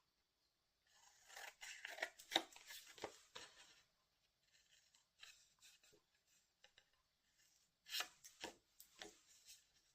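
Scissors cutting through 210 gsm card, a quiet run of crisp snips and paper crackle that comes in bursts: about a second in, faintly in the middle, and again near the end.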